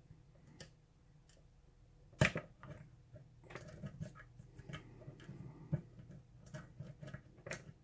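Metal lock pick and tension wrench working the pins of a pin-tumbler lock: small, quick clicks and scraping, with one sharper click about two seconds in. The pins are being probed for feedback while the lock is held in a false set.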